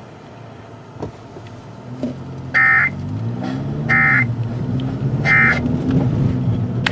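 Three short bursts of EAS/SAME end-of-message data tones from NOAA Weather Radio, about a second and a half apart, each a fraction of a second of harsh two-pitch modem warble, marking the end of a tornado watch broadcast. A low rumbling hum runs under them.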